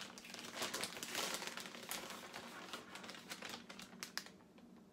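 Plastic bag of shredded mozzarella crinkling and rustling as a hand pulls cheese out and sprinkles it, with many small crackly ticks. It dies down about four seconds in.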